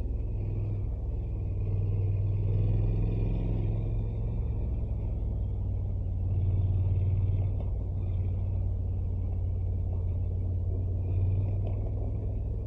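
Honda NC750X motorcycle's parallel-twin engine running steadily, its sound swelling slightly a couple of times.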